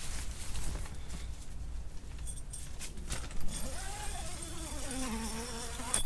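A flying insect buzzing close by, its pitch wavering and falling in the second half, after a few seconds of fabric rustling and handling clicks.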